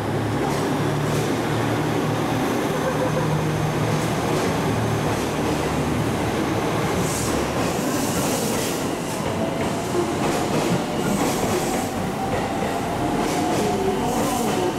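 JR West 223 series 6000 electric train running in alongside the platform and passing close by. Its motors hum steadily at first, wheels rattle on the rails with bursts of hiss, and thin whining tones shift in pitch near the end.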